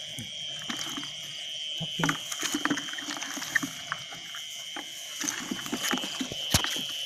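Night insect chorus, a steady high trill, with scattered clicks, knocks and handling noise close to the microphone.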